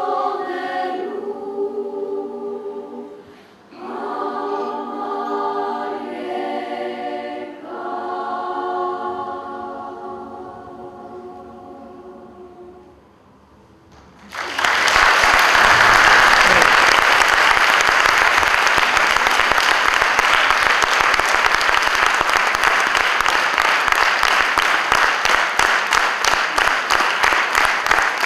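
Children's choir singing the closing phrases of a song, ending on a held chord that fades away. About halfway through, audience applause breaks out suddenly and keeps going, louder than the singing.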